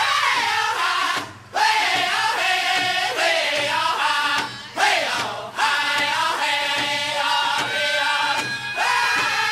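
Music with several voices singing together, the sound dropping away briefly twice.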